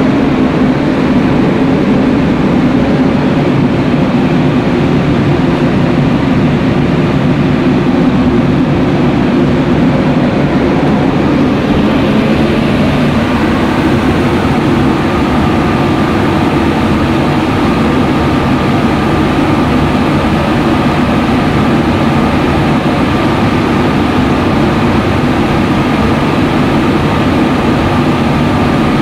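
Motor-driven biomass machine running steadily, a loud continuous low hum and rush of motor and fan, with a thin steady whine joining about halfway through.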